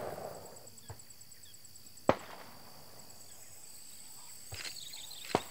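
Firecrackers set off by farmers to chase wild elephants off the plantations: four distant sharp bangs, the loudest about two seconds in and just before the end. A steady high insect buzz runs underneath.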